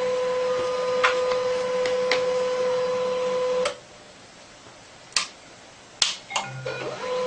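Desktop printer running with a steady electric whir that cuts off suddenly about three and a half seconds in. Several sharp clicks of the mechanism come before and after it stops.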